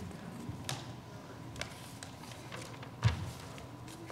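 Faint rustles and taps of paper sheets being handled next to a handheld microphone, with one dull thump about three seconds in.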